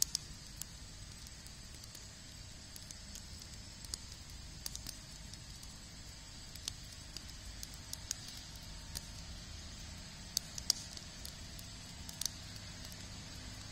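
Wood campfire of sticks burning in a steel fire ring, crackling with irregular sharp pops, a few louder pops near the start and a cluster of them toward the end.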